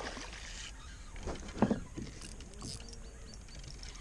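A fish splashing at the surface of calm water, followed by a couple of sharp knocks about a second and a half in.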